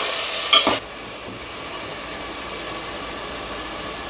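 Paneer cubes sizzling as they fry in oil in a non-stick pot, with a brief clink of the spatula just over half a second in. Then the sizzle drops suddenly to a quieter, steady hiss.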